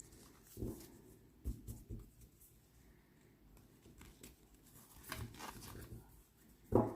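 A new gilt-edged tarot deck being handled and shuffled by hand: scattered soft card slides and taps, the sharpest one near the end.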